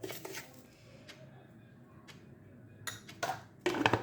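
Metal spoon knocking and scraping against a glass jar as sugar is spooned in: a short clatter at the start, then a louder run of taps near the end.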